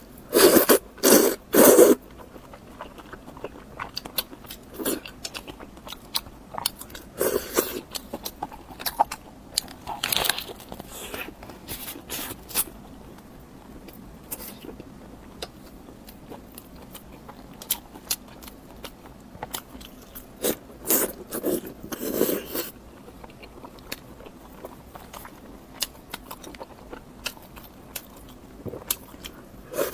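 Close-miked eating: crunchy bites and chewing, with the loudest bites coming in clusters near the start, again around a third of the way in and about two-thirds in, and softer chewing clicks between.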